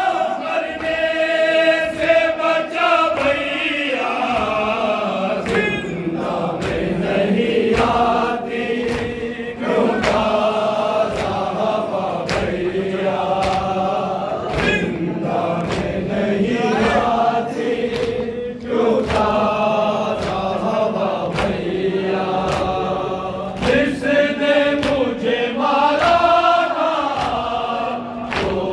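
A group of men chanting an Urdu noha (Shia lament) in unison, with a steady beat of hands striking chests (matam) keeping time.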